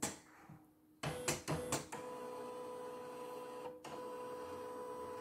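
CNY computerized embroidery machine's motors running: a few sharp clicks about a second in, then a steady whine that breaks off briefly near the middle and resumes.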